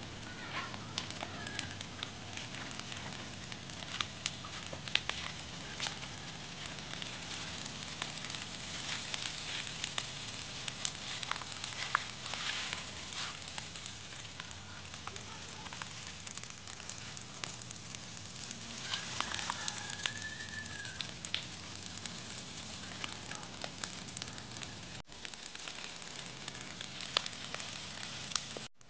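A brush pile of cut branches, green leaves and dry twigs burning, crackling with irregular sharp pops and snaps over a steady hiss.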